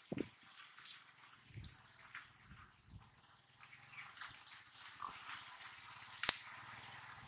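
Small blade cutting and scraping a freshly caught fish by hand: scattered soft scrapes and ticks, with one sharp click about six seconds in. Faint repeated high chirps sit behind it.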